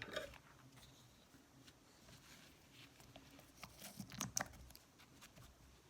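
Faint clicks and taps of small nail supplies being picked up and handled, a few clustered about four seconds in.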